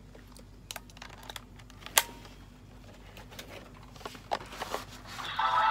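Light plastic clicks and taps from a toy being handled, with one sharp click about two seconds in. Near the end an electronic toy sound with several steady tones starts.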